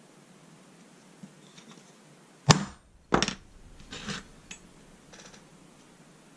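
Steel bars knocking on a workbench as they are moved into position: two sharp metallic clanks about a second apart, the first the loudest, then a few lighter clinks.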